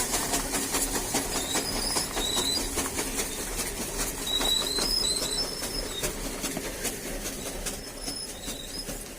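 Buffalo being milked by hand: jets of milk squirting in a quick, steady rhythm of short strokes.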